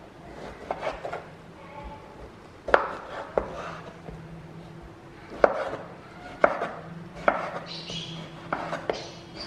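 Kitchen knife cutting peeled raw breadfruit into small pieces, the blade chopping down through the firm flesh onto a wooden cutting board. About nine separate chops, unevenly spaced.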